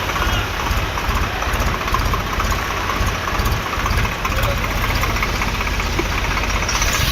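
Tractor engine running steadily, a loud, rapid low knocking beat under broad noise.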